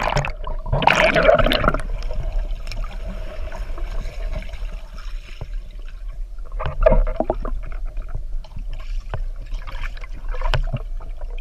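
Muffled gurgling water heard through a submerged action camera, with scattered small clicks and a louder rush of water about a second in and again around seven seconds.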